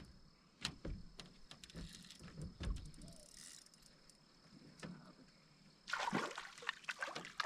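Scattered light knocks and clicks of handling in a fishing boat, then a short burst of splashing water for about the last second and a half.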